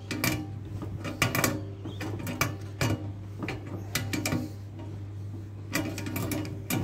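Irregular metal clicks and knocks of a hand tool screwing a new, thread-taped safety valve tight into an espresso machine's boiler fitting, over a steady low hum.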